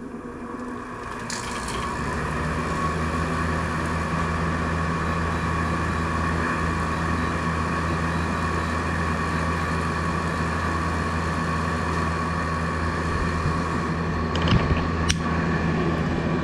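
Window air conditioner starting up on a bench test: its hum builds over the first couple of seconds as the unit comes on, then runs steadily, a sign the unit still works after being dropped and left outdoors. A single brief knock comes near the end.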